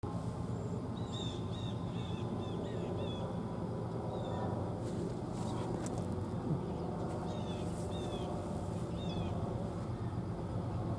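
Small birds chirping in short, repeated down-slurred calls, in a bunch near the start and again in the second half, over a steady low rumble.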